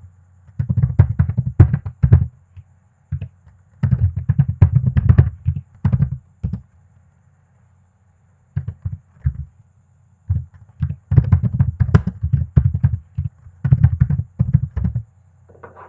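Typing on a computer keyboard: quick runs of keystrokes separated by short pauses, with a break of about two seconds near the middle.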